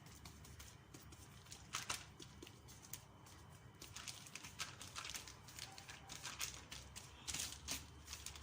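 Faint soft pats and taps of hands folding and pressing bread dough on a floured work surface, with a few louder taps scattered through.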